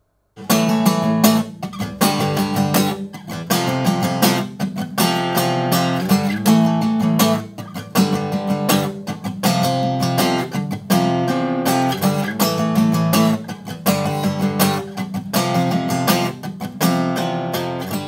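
Seagull S6 Spruce acoustic guitar, with a solid spruce top and wild cherry back and sides, strummed in a steady rhythm of repeated chords, starting about half a second in.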